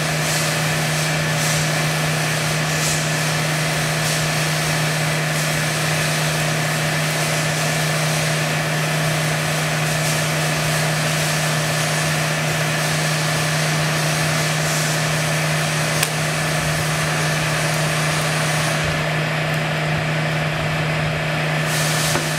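Hydraulic loading system running a cyclic fatigue test: a steady machine hum with one constant low tone and a hiss of pump noise over it, with a single small click about 16 seconds in.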